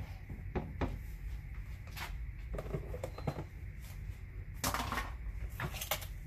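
Kitchen handling sounds: a few light knocks and clatters as a silicone spatula and other items are set down on the counter, then rustling of a plastic bag being handled, over a low steady hum.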